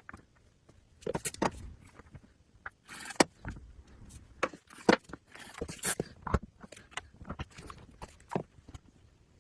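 Irregular knocks, clicks and short scraping sounds of hand work with wooden pieces and tools, with a couple of longer rasping passes around three and six seconds in.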